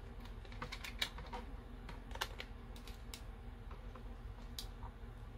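Irregular light clicks and taps of hard plastic parts and wire leads being handled as a battery-management circuit board and its 3D-printed plastic bracket are fitted into a drone's battery bay, over a steady low hum.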